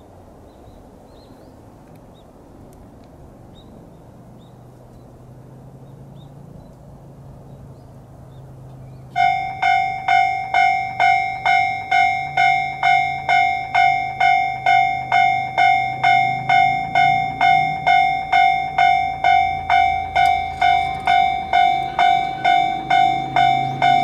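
Japanese level-crossing warning bell starting suddenly about nine seconds in and ringing about twice a second, signalling that a train is approaching and the barriers are closing. Before it, only a low, steady background rumble with a few faint high chirps.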